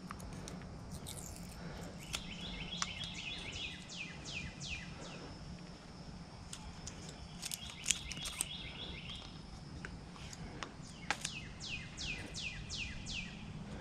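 A songbird singing, repeating one phrase three times: a run of quick chips followed by several downward-sweeping whistles, about every four to five seconds. A few faint clicks come in between.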